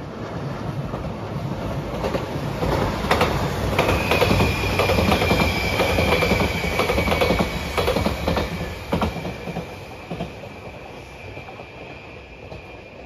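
JR Shikoku 8600 series electric limited express train passing at speed. Its rumble builds to a peak with clacking wheels over rail joints, then fades as it draws away. A steady high whine comes in as the train goes by and lingers while it recedes.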